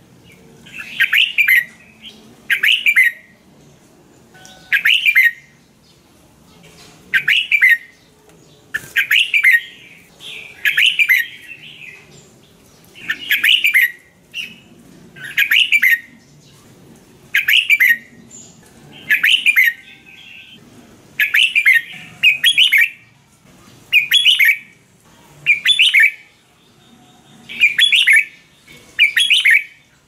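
Red-whiskered bulbul singing: short loud song phrases repeated about every one to two seconds, a few coming in quick pairs.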